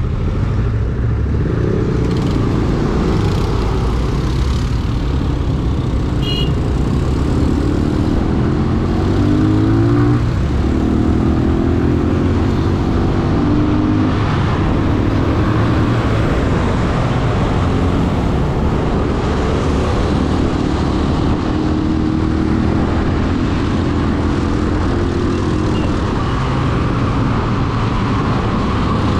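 AKT NKD 125 single-cylinder four-stroke motorcycle engine running under way, its pitch climbing as it accelerates, with a drop at a gear change about ten seconds in. Heavy wind rumble on the microphone lies under it throughout.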